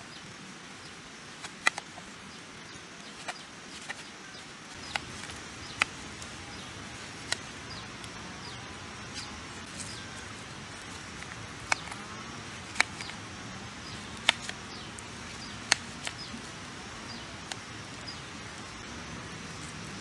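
Knife slicing a watermelon on a plate: irregular sharp clicks every second or so as the blade cuts through the rind and taps the plate, over a steady outdoor forest background.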